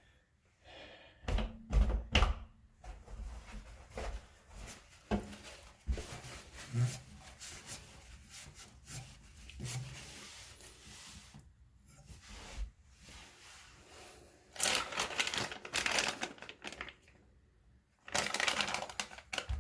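Hands handling a copper pipe, tools and parts: scattered knocks and clicks, then bursts of rustling in the last few seconds.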